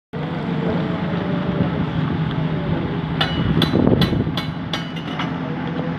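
Chapli kebabs frying in a large wok of bubbling oil over a steady low hum. A little past halfway, a quick run of about seven sharp metal clicks comes from a metal tool knocking against the pan.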